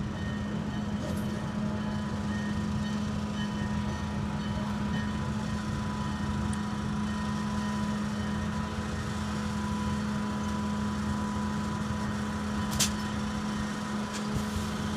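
Diesel engines running steadily: a self-propelled track maintenance machine rolling slowly along the rails, with an Alco S1 switcher locomotive idling behind it, giving an even low drone. A single sharp click sounds about 13 seconds in.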